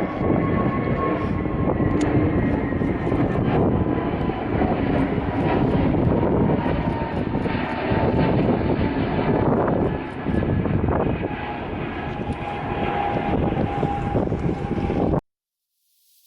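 Airliner jet engines running loud and steady, with a high whine that slowly falls in pitch; the sound cuts off suddenly near the end.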